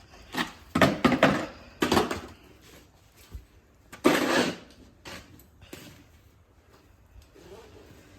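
Snow shovel scraping over snow on a concrete driveway in a series of short strokes, the loudest about four seconds in, growing quieter after about six seconds.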